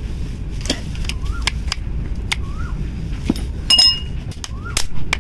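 Pliers and the pinion lock ring clicking and clinking against the steel shaft of a truck starter motor drive as the lock is fitted. About seven sharp metal clicks, one ringing clink past the middle.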